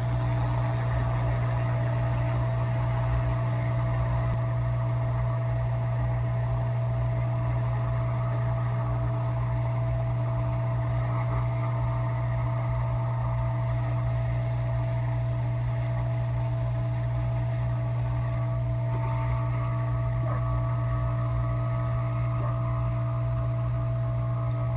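Hot air rework station blowing steadily over a logic board: an even hum with a hiss and no change in level, heating a capacitor's solder to desolder it.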